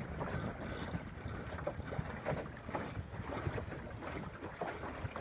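A small sailboat under way in choppy water: wind buffeting the microphone and water splashing and slapping irregularly against the hull.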